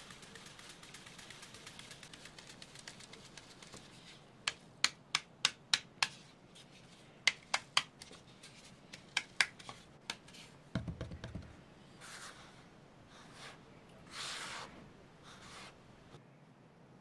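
A round metal flour sieve being shaken: a soft hiss of flour falling through the mesh, then a run of sharp taps on the sieve, about three a second. A dull thump follows about eleven seconds in, then rustling as a hand stirs the sifted flour in a plastic bowl.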